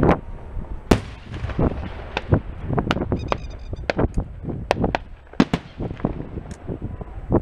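Aerial firework shells bursting in a rapid, irregular series of sharp bangs, with a brief crackling about three seconds in.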